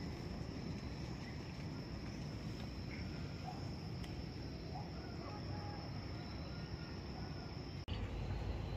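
Outdoor ambience: an insect trilling as one steady high-pitched tone, with a few faint short bird chirps, over a low rumble. Near the end the sound changes abruptly: the trill stops and the rumble gets louder.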